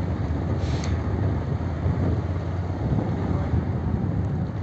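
Motorcycle engine running steadily at low speed, with wind rumbling over a helmet-mounted phone microphone.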